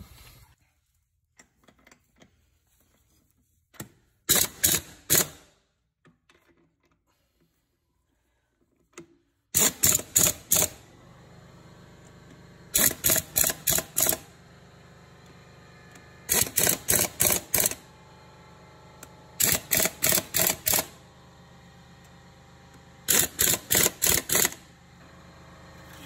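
Pneumatic impact wrench hammering wheel lug nuts tight, in six short bursts of rapid strokes a few seconds apart, one nut at a time in an alternating pattern. A steady low hum runs underneath from about a third of the way in.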